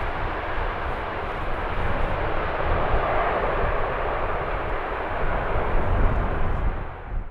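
Jet airliner's engines running loud and steady as it passes, with strong wind buffeting the microphone as a choppy low rumble. The sound dips just before the end, then cuts off suddenly.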